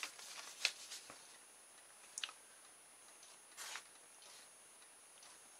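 Faint, scattered clicks and short rustles from small plastic motor-kit parts and a thin metal shaft being handled, with the paper instruction sheet shuffled: a few light clicks in the first half and a brief paper-like rustle past the middle.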